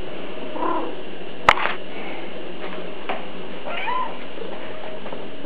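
Domestic cat meowing twice, short calls about three seconds apart, with one sharp click between them.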